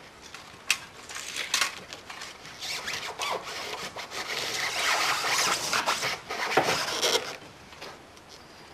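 A metal blade scraping and sawing through the expanded polystyrene foam of an insulated concrete form to cut slots for an anchor hanger, as a series of scratchy rubbing strokes. A couple of sharp clicks come in the first two seconds, the strokes are densest and loudest through the middle, and they die down near the end.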